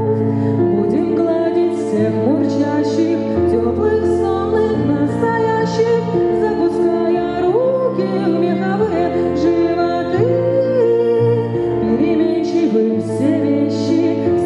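A woman singing to slow sustained chords on a Kawai ES6 digital piano, the chords changing every second or two.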